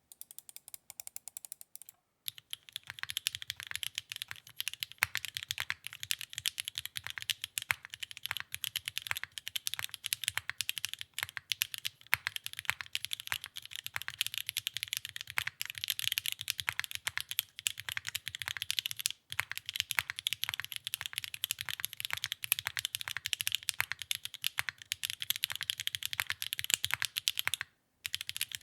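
Fast, continuous typing on a Neo65 mechanical keyboard with a copper case and HMX Sonja HC switches, keystrokes following each other many times a second. It starts softer for the first two seconds and pauses briefly about two seconds in, around nineteen seconds, and near the end.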